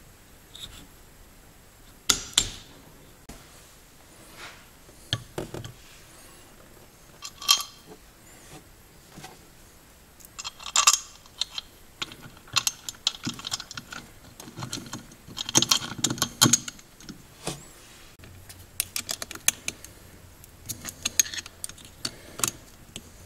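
Metal hardware and hand tools being handled: irregular clinks and rattles of bolts, nuts and wrenches. A few scattered clicks at first, then quick runs of clinking about halfway through and again near the end.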